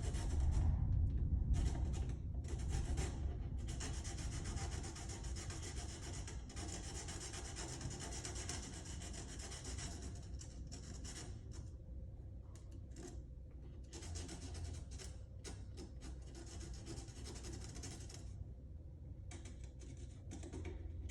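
Black pen rubbed back and forth along the cut wooden edge of a cabinet stile to color it: a hissing rub in long stretches of strokes broken by short pauses.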